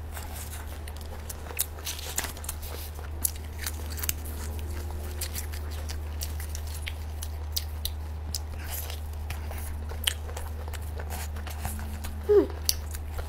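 Close-miked chewing of Vietnamese nem chua, a fermented garlicky pork roll: many small wet mouth clicks and smacks. A brief louder sound with a sliding pitch comes near the end.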